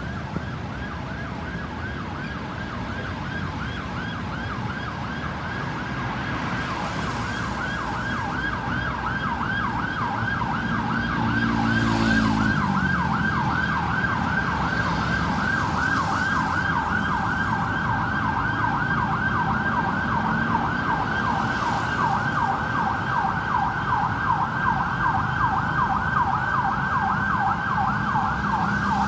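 Ambulance's electronic siren in a fast yelp: rapid, evenly repeated rising-and-falling wails that grow louder over the first dozen seconds, with road and engine noise underneath.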